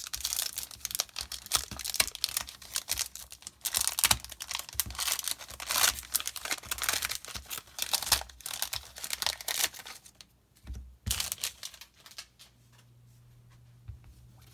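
A foil Pokémon trading-card booster pack wrapper being crinkled and torn open, with dense crackling that stops about ten seconds in. A couple of softer rustles follow, then a faint low hum.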